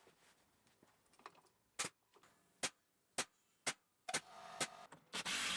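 A series of sharp single clicks, roughly half a second to a second apart, then a rushing hiss that starts about four seconds in and grows louder near the end.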